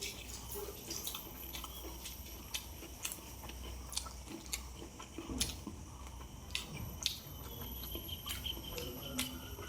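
Close-miked chewing and mouth sounds of a person eating rice and fish curry, with scattered short wet clicks and smacks over a steady low hum.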